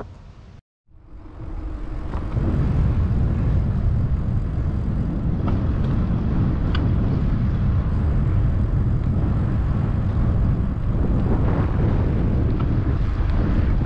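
Wind buffeting the microphone of a camera riding along on a moving bicycle: a loud, steady low rumble that starts about a second in, after a brief dropout.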